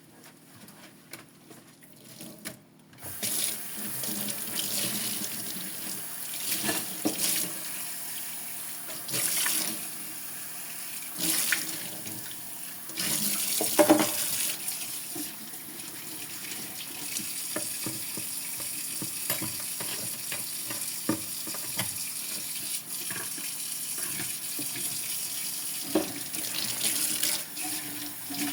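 Sink tap turned on about three seconds in, water running steadily into the sink, with dishes knocking and clinking as they are washed under the stream.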